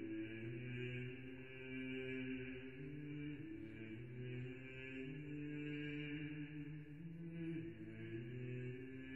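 Slow background music of held low tones that step to new pitches every second or two, in a chant-like drone.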